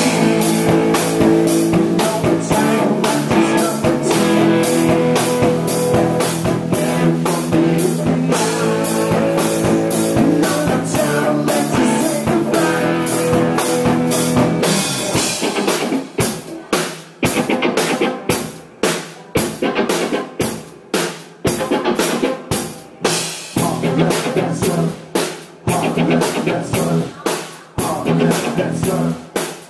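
Live rock band playing electric guitar, bass and drum kit together. About fifteen seconds in, the steady full-band sound gives way to a stop-start passage of sharp drum-led hits with brief gaps between them.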